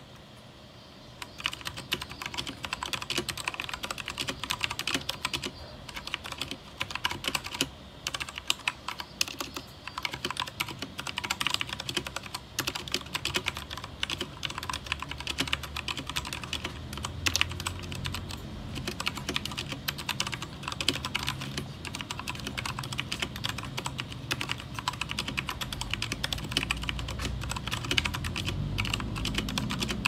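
Fast, continuous typing on a Royal Kludge RK68 (RKG68) 65% mechanical keyboard with stock RK brown tactile switches, a steady stream of keystrokes starting about a second in. A low background rumble grows louder in the second half.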